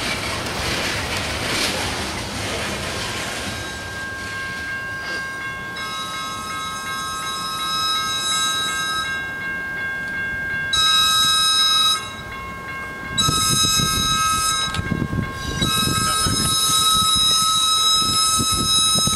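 Train passing with wheels rolling over the rails, then a train horn sounding four blasts at a grade crossing. The first and last blasts are long, the middle two shorter. A deeper rumble of wheels on rail builds through the last blasts as the passenger train reaches the crossing.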